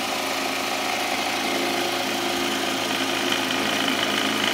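Black+Decker KS900EKX 600 W pendulum jigsaw running steadily while cutting through plywood, getting slightly louder near the end.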